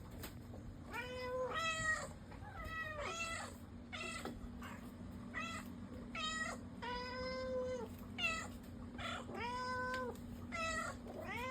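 Several domestic cats meowing one after another, about a dozen meows: some short, some drawn out for about a second, and at times two overlapping at different pitches.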